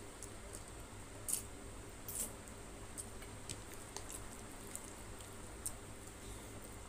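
Close-up eating sounds of rice and fish curry eaten by hand: soft wet squishes and scattered clicks from the mouth chewing and fingers mixing rice in curry, with two louder smacks about a second and two seconds in.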